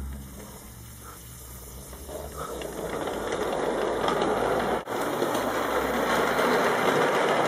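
Mamod live steam model locomotive getting under way on its track: a steady hiss of steam and running noise that builds over the first few seconds as it picks up, then holds.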